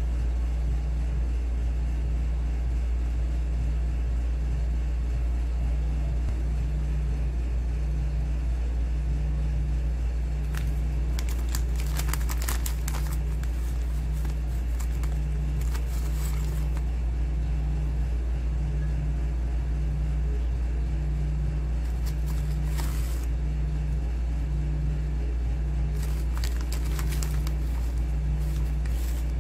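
A steady low mechanical hum with a regular pulse a little over a second apart, and over it the plastic wrapper of a pack of graham crackers crinkling in a few short spells, around the middle and again near the end as crackers are taken out.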